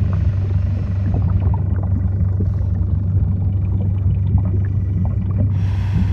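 Underwater ambience: a steady low rumble with many small clicks and pops scattered over it. About five and a half seconds in, a hiss joins it.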